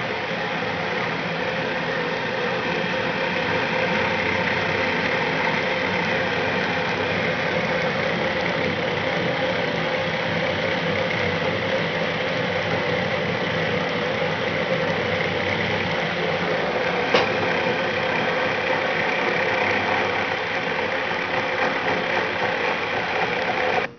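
Selected-area decapsulation milling machine running, its spinning tool grinding away the plastic mold compound on the back of an IC package: a steady mechanical whir with a constant hum. A single sharp click about 17 seconds in.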